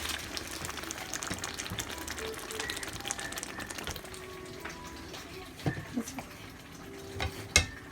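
Sauce frying and sizzling in a pan, then quieter, with a few sharp knocks of a knife on a cutting board as hot dogs are sliced; the loudest knock comes near the end.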